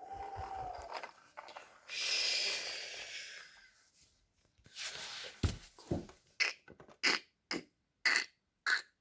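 A faint breathy whoosh, then a low thump and a run of short sharp clicks and scrapes in the second half, from plastic Duplo toys being handled.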